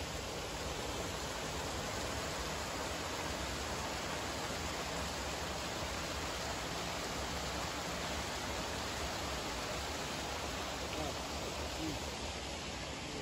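Water pouring steadily over the concrete walls of stepped trout-farm tanks and splashing into the tanks below: a constant rushing sound.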